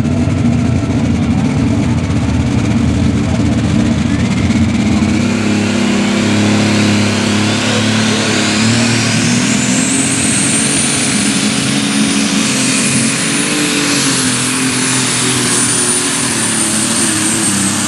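Open super stock pulling tractor's engine running at the line, then revving up as it pulls the sled. A high turbocharger whine climbs steadily for several seconds, holds high, and begins to fall near the end.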